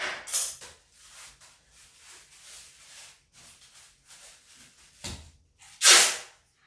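Packing tape being torn off its roll while a parcel is wrapped: a loud rip at the start and the loudest rip near the end, with a short knock just before it. Softer crackly rustling of the packaging comes in between.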